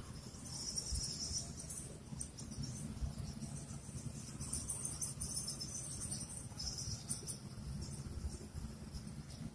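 Insects chirring in uneven high-pitched bursts, over a steady low rumble.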